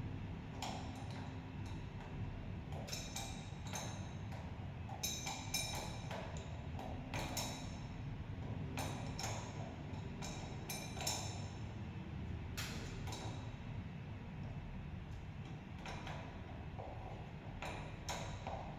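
Irregular light metallic clinks and taps, some ringing briefly, over a steady low hum.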